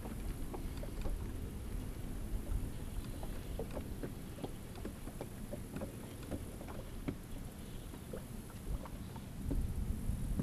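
Water lapping and knocking against the hull of a small fishing boat, over a steady low rumble, with many small irregular ticks.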